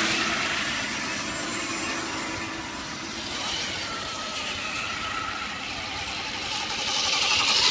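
Scale RC crawler trucks driving over a dirt trail, their small electric motors and gears whining, with faint shifting pitch in the middle and getting louder near the end as a truck comes close.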